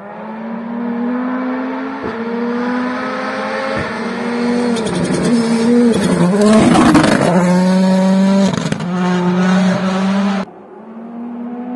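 Ford Puma Rally1 car's turbocharged four-cylinder engine at full throttle on a gravel road. The note climbs and drops at each upshift as it approaches, dips sharply as the driver lifts and brakes near six seconds, then comes past with a rush of tyre and gravel noise and revs up again as it pulls away. The sound cuts off suddenly about ten and a half seconds in.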